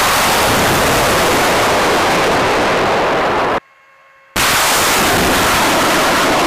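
Artillery rocket launch: a loud, steady roar of rocket exhaust lasting several seconds. It cuts off sharply a little over halfway through and returns about a second later.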